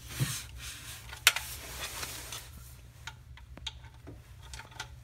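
Metal clicks and light scraping of a 13 mm box-end wrench with a pipe cheater bar being worked on a car's oil pan drain plug, with one sharp metallic click about a second in as the loudest sound.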